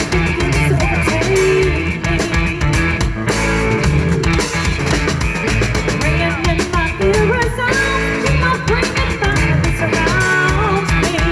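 Live rock band playing: a woman sings a wavering melody over electric guitar and a drum kit.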